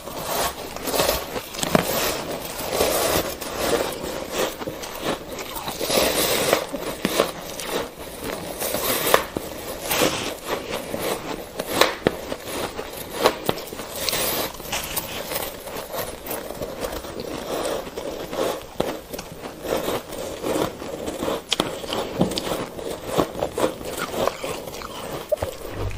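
Compacted shaved ice dusted with matcha powder being bitten and chewed: a dense, irregular run of crunching and crackling, the sounds of two eaters layered together.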